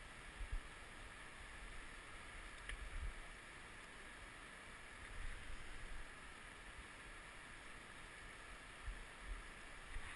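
Faint, steady rush of a flowing river and wind, with a few brief low bumps of wind or handling on the camera microphone.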